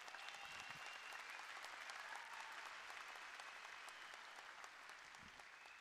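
A large audience applauding, the clapping slowly dying down towards the end.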